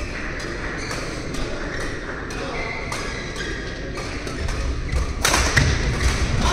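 Badminton rally: irregular sharp racket strikes on the shuttlecock and players' feet thudding on the court, with short high shoe squeaks. A louder burst comes about five seconds in.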